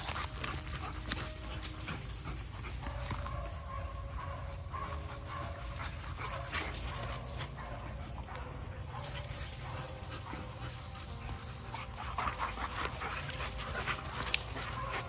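American Bully dogs panting hard while they chase and wrestle, with many short scuffling clicks from their paws on dry leaves and pine needles.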